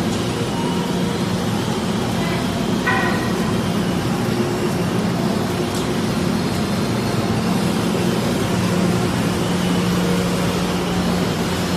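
Industrial panel sanding machine for doors running, a steady mechanical noise with a constant low drone. A brief high tone sounds about three seconds in.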